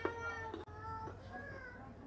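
Faint, high-pitched wavering cries, several short calls that die away in the first second and a half or so.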